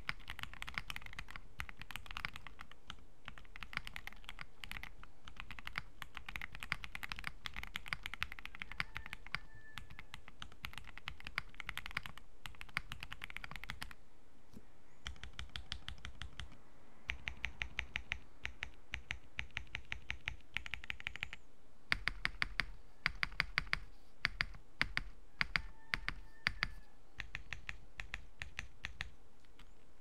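Typing on a walnut-cased Tofu60 mechanical keyboard with factory-lubed Gateron Oil King linear switches, a steady run of fast keystrokes. About halfway through it gives way to keys pressed one at a time, evenly spaced, then a run of louder, deeper-sounding single presses, before fast typing resumes near the end.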